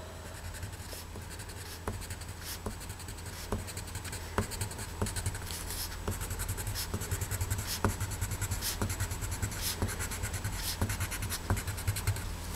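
Pink crayon scratching on paper in short repeated strokes, drawing little stripes of colour; the strokes come quicker in the second half.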